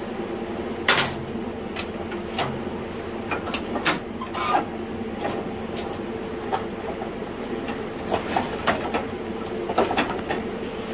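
Scattered metal clanks and knocks as a Simplicity snowblower's steel mounting frame is pushed forward under a garden tractor and its clips slide onto the front axle piece. The loudest clank comes about a second in. A steady low hum runs underneath.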